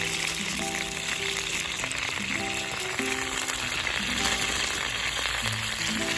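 Chicken gizzards and king oyster mushrooms sizzling in oil in a small frying pan for ajillo, a steady hiss, under background music with a simple melody.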